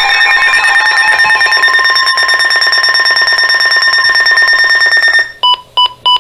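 Electronic emergency alert tone from a weather alert broadcast: a loud, steady, buzzy alarm of several fixed pitches. It cuts off about five seconds in and is followed by three short beeps.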